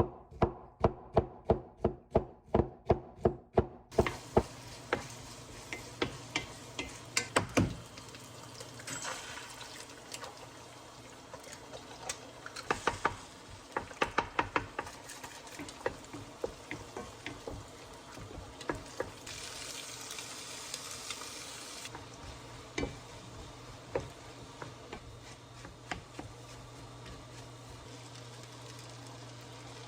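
A knife chopping on a cutting board, about three strikes a second for the first four seconds. Then food frying in a pan with a steady sizzle, with utensil taps and scraping as it is stirred, and a louder hiss for a couple of seconds about twenty seconds in.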